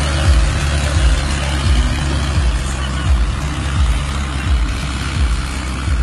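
Mahindra Arjun tractor's diesel engine running steadily under load while it pulls a disc harrow through a flooded, muddy field. Under it a low rumble swells about every three quarters of a second.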